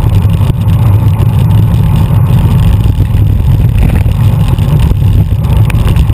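Wind buffeting an action camera's microphone at riding speed on a bicycle: a loud, steady low rumble.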